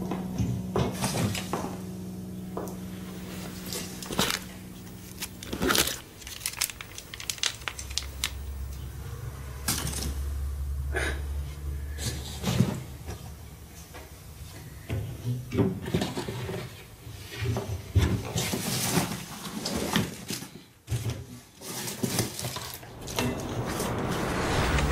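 Household objects being handled and set down: scattered clinks, knocks and clatters like dishes and cutlery, some sharp and loud, at irregular intervals.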